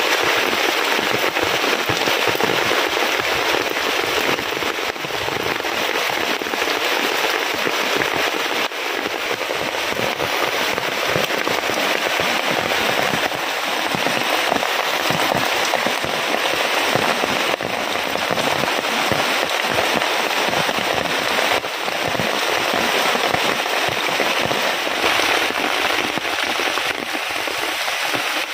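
Heavy rain falling into pooled muddy water: a dense, steady patter of countless drops splashing.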